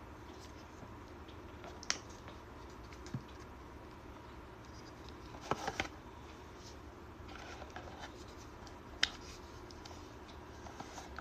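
A few sharp clicks and light scraping of small hard objects being handled, over a steady low hum. The clicks come about 2 s in, near 3 s, in a quick cluster around the middle, and once more about 9 s in.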